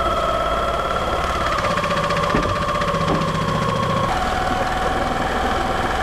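Rebuilt Jabsco 36600 belt-driven diaphragm shower sump pump running on test, its electric motor humming steadily with a rapid even chugging from the diaphragm; the tone changes about four seconds in. It is running as it should after the rebuild, no longer leaking.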